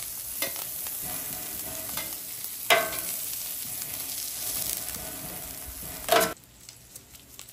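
Butter and corn sizzling on a hot flat-top griddle as the cob is rolled through the melting butter with a metal spatula and bench scraper. There are a couple of sharper knocks of the metal tools on the plate. The sizzle cuts off about six seconds in.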